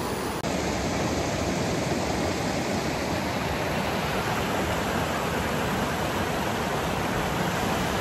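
Steady rush of a mountain river's water cascading over granite rocks in small rapids. There is a momentary break about half a second in.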